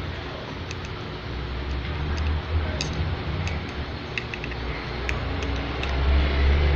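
Scattered light metallic clicks of a screwdriver pushing a retaining clip down into a motorcycle fork tube, over a low engine rumble that grows louder near the end.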